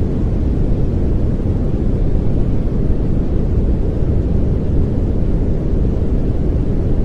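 Steady synthetic pink noise, an even hiss weighted toward the low end, with no change or events.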